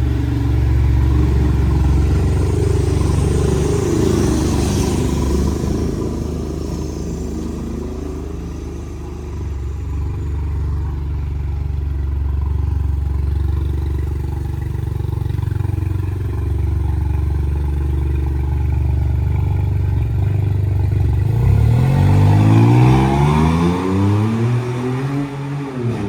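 VW Polo 1.0 TSI three-cylinder turbo engine, its exhaust fitted with a stainless-steel DPW diffuser, running with a steady low rumble as the car moves off. About 21 seconds in it revs up with a rising pitch as the car accelerates away, easing off near the end.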